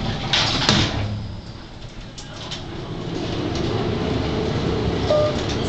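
A 1922 passenger elevator in operation: a short noisy burst about half a second in, then a low rumble that builds steadily as the car runs, with a brief short tone about five seconds in.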